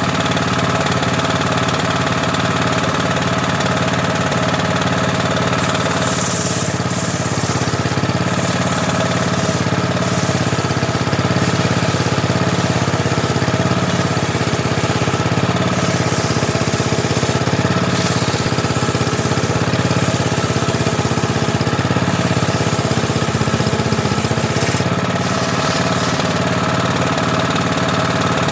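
Engine-driven homemade table saw running steadily, its circular blade sawing through teak from about six seconds in until near the end, then running free again.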